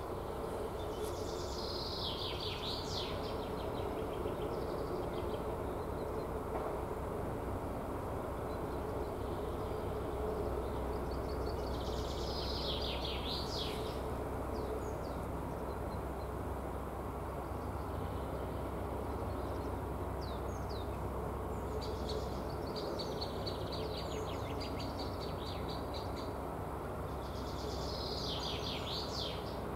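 A songbird singing short bursts of quick repeated notes, four times spread through the stretch, with the longest run in the second half, over a steady low background noise and hum.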